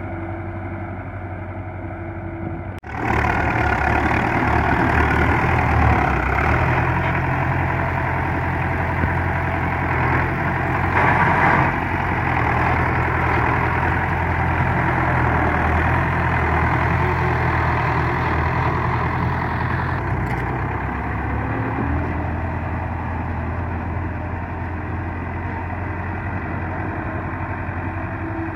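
Belarus 510 tractor's diesel engine running steadily under load as it pulls a cultivator through a flooded rice paddy. It is louder and closer from about three seconds in until about twenty seconds in.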